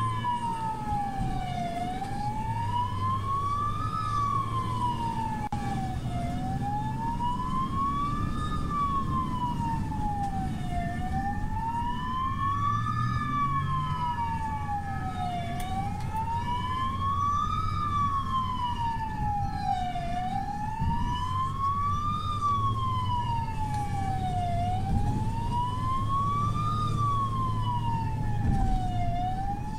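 Emergency vehicle siren wailing in a slow, even rise and fall, about one cycle every four and a half seconds, over the steady rumble of engine and road noise, heard from inside the moving ambulance.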